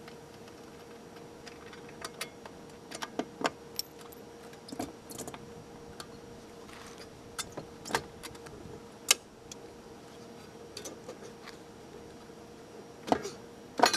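Metal hand tools, bolts and suspension parts clinking and tapping in short, scattered clicks, with a cluster of louder clanks near the end. A faint steady hum runs underneath.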